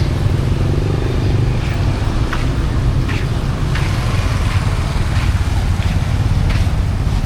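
A motorbike engine running steadily with a low rumble, with a few short clicks and clatters over it.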